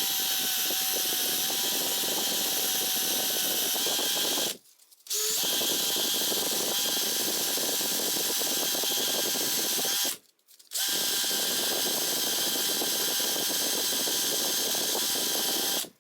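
A handheld power tool's motor running steadily in three runs of about five seconds each. Each run starts and stops abruptly.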